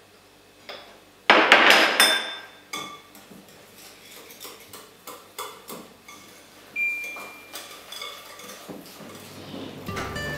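A spoon stirring thick cheesecake batter in a mixing bowl, clinking and scraping against the bowl in quick, irregular strokes. About a second in there is a short, loud scraping rush, the loudest sound here.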